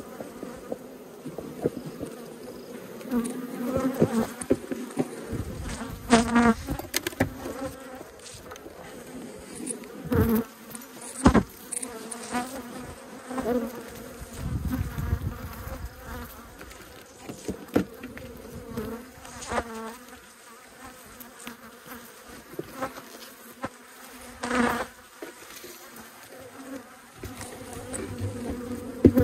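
Honeybees buzzing around an open hive: a steady hum, its pitch wavering now and then as single bees fly close past. A few sharp knocks are scattered through it.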